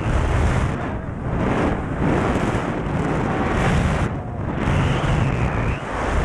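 Airflow buffeting an action camera's microphone during a parachute descent under an open canopy, a loud rushing noise that swells and eases in gusts, with a brief lull a little past the middle.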